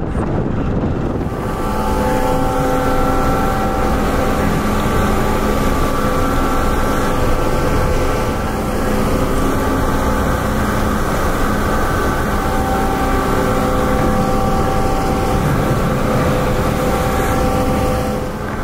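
Car ferry's machinery running with a steady hum of several held tones, mixed with wind noise on the microphone. The noise swells about a second and a half in and eases off just before the end.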